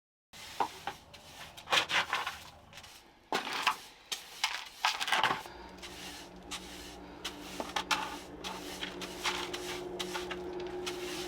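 Irregular knocks, clatters and scrapes of hard objects being handled and set down. About halfway through, a steady low hum comes in and continues under them.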